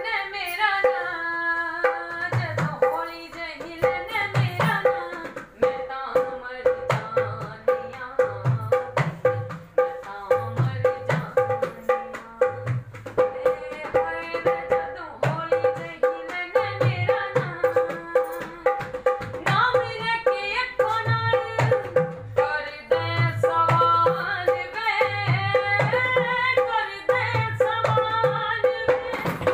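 A woman singing a Punjabi song to a dholak, the drum keeping a steady rhythm of deep bass strokes and sharp treble slaps under her voice.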